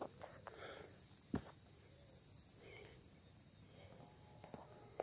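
Steady high-pitched chorus of insects in tropical mountain forest, with a single soft knock about a second and a half in.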